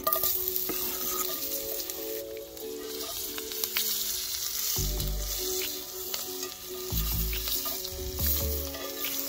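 Quartered red potatoes dropping into hot butter in a cast-iron skillet, which sizzles steadily as they fry. A slotted metal spatula stirs and scrapes them around the pan, adding light clicks over the sizzle.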